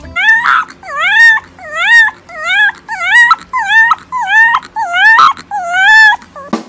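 A dog whining in a string of about a dozen short, high, rising-and-falling whimpers, roughly two a second.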